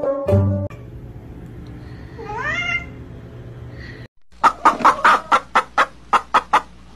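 Chickens clucking in a quick run of sharp clucks, about five a second, in the second half. Before it, a cat gives one brief rising meow over a low hum.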